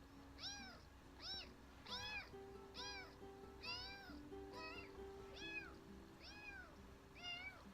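A cat meowing over and over in short calls, about two a second, each rising then falling in pitch. Soft background music notes are held underneath.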